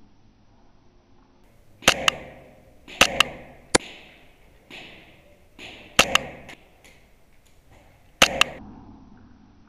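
An HPA-powered airsoft G3 marksman rifle with a PolarStar Kythera engine firing single shots, five in all and a second or more apart. Each shot is a sharp snap followed by a quick second click and a brief hiss of air.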